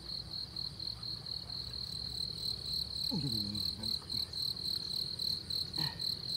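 Insect chorus: a steady, high-pitched trill pulsing several times a second. A brief falling call about three seconds in and a click near the end.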